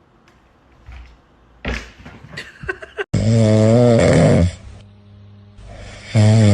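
Two loud, low, drawn-out voiced calls with a wavering pitch, each about a second and a half long, the first starting abruptly about three seconds in and the second near the end, preceded by a few clicks and knocks.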